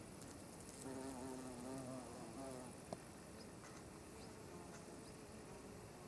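A bee buzzing in flight, its pitch wavering as it moves about, loudest from about one to nearly three seconds in and fainter after that. A single sharp click comes just before the buzz fades.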